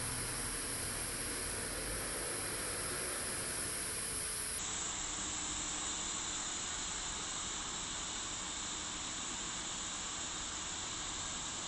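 A steady hiss with no clear pitch; its tone changes abruptly about four and a half seconds in.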